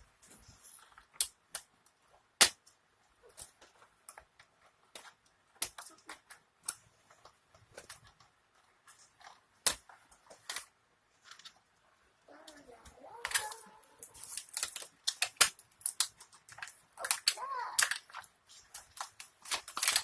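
Cardboard and plastic packaging being torn and handled as a toy blaster box is opened: scattered sharp clicks, snaps and crinkles at irregular intervals, busier in the last several seconds.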